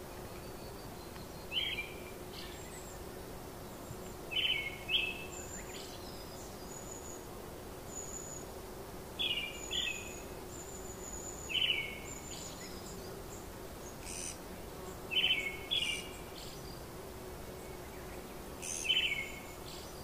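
Forest birds calling: one bird repeats short falling chirps, often two in quick succession, every few seconds, while fainter thin high notes from other birds sound in between. A steady low hum and soft hiss run underneath.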